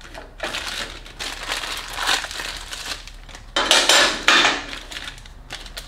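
Small metal parts and hardware clinking and rattling as they are handled, in a string of short clatters that are loudest about three and a half to four and a half seconds in.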